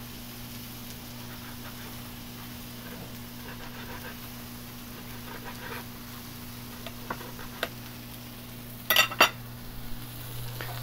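Soft knife taps on a wooden cutting board as raw steak is sliced, over a faint hiss of vegetables sizzling on a gas griddle and a steady low hum. Near the end, two sharp clacks as the knife is set down against the plate.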